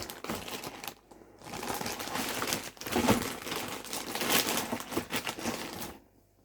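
Packaging crinkling and rustling as an item is unwrapped by hand, with a short lull about a second in; it stops suddenly near the end.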